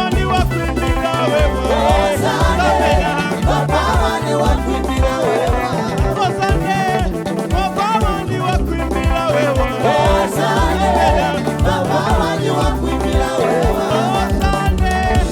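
A live gospel praise band plays an upbeat groove with a steady bass pulse, and a wavering melodic line, voice or lead instrument, runs over it.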